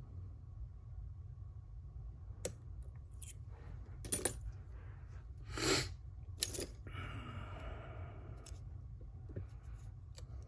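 Small metal lock parts clicking and clinking as a Schlage Primus lock is handled and taken apart: a few sharp clicks, the loudest about halfway through, then a brief metallic ringing, over a steady low hum.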